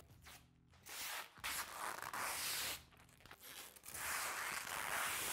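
Protective plastic film being peeled off a clear polycarbonate half windshield, a dry ripping hiss in about four pulls, the longest near the end.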